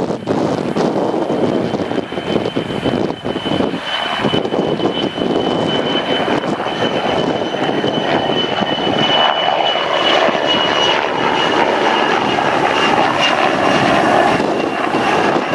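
PZL W-3A Sokol helicopter flying past, its twin turboshaft engines and rotor running with a steady high turbine whine over the rotor noise, swelling a little in the second half.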